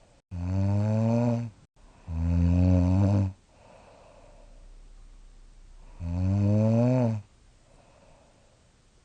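A young woman snoring in her sleep: three loud, low-pitched snores of about a second each, the first two close together and the third a few seconds later, with faint breathing between. She has been diagnosed with mild sleep apnea.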